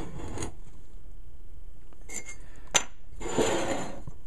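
Two steel axe heads being shifted and set down on a workbench. There is a scraping rub at the start, a single sharp metal clink a little under three seconds in, then another rub as a head is slid across the bench.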